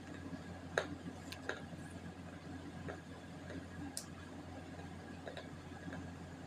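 Scattered light clicks and scrapes of a steel spoon against a steel plate as it scoops wet multani mitti (Fuller's earth) paste, with a few sharper clicks, the loudest about a second in. A steady low hum runs underneath.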